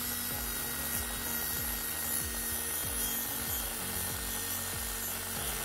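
A high-speed rotary tool with a small abrasive cut-off disc grinding through a motorcycle throttle cable: a steady, gritty hiss over a thin high whine from the tool's motor.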